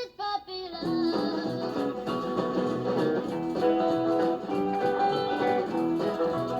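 Music: a plucked-guitar tune played at a steady, lively pace, opening with a few short sliding notes in the first second.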